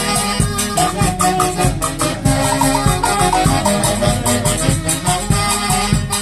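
Live Andean folk band from Huánuco, with saxophones and a harp, playing dance music over a steady beat.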